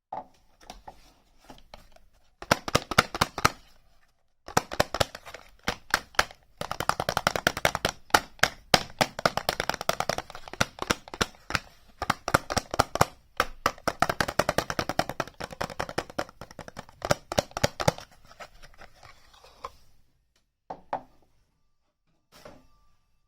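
Packaging being handled close to the microphone: rapid, dense sharp crackling, in spells over several seconds with brief pauses, fading to a few faint crinkles near the end.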